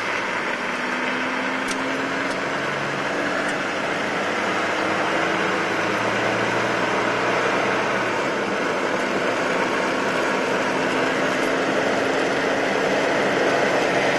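Steady road noise from inside a car driving on a dirt road: tyre rumble with a low engine hum that drifts slowly in pitch, growing slightly louder.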